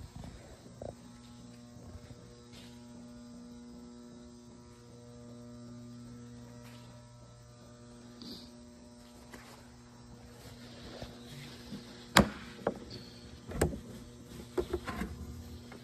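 Steady electrical mains hum with several evenly spaced overtones. A few sharp knocks come about twelve seconds in and again a second and a half later, followed by a quick cluster of lighter taps near the end.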